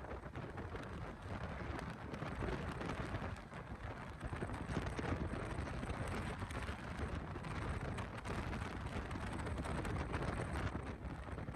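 Riding noise from a moving motorcycle: a steady rush of wind buffeting the microphone over a low rumble of engine and tyres on a rough road.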